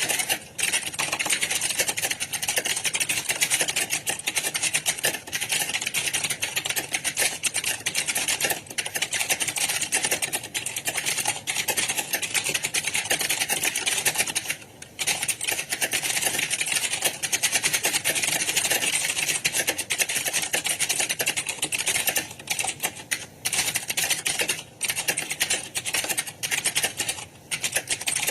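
Fast typing on computer keyboards: a dense, continuous clatter of keystrokes, with a short pause about 15 seconds in.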